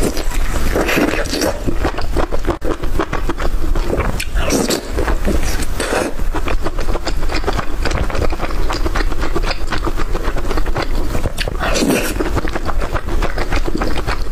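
Eating sounds close to the microphone: a dense run of crunching, clicking and scraping, with a few short louder swells.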